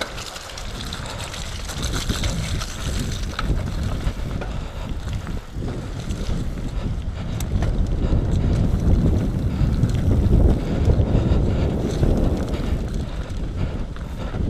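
Nukeproof Mega 275 enduro mountain bike descending a dirt trail at speed: wind buffeting the microphone over the rumble of tyres on dirt and leaves, with short clicks and rattles from the bike. The low rumble grows louder in the second half.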